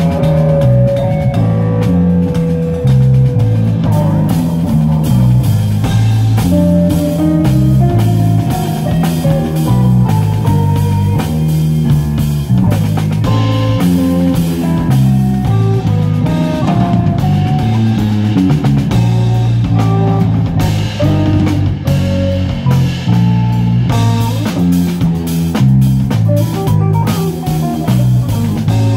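Contemporary jazz quartet playing live: electric guitar, electric bass, keyboard and drum kit. A strong, moving bass line sits under guitar melody lines, with drums and cymbals keeping time.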